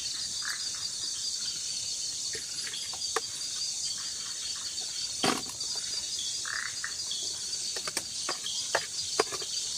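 Steady shrill chorus of crickets and other night insects in tropical forest, with a fine rapid pulsing. A few short sharp clicks and knocks break in here and there, loudest about five seconds in and near the end.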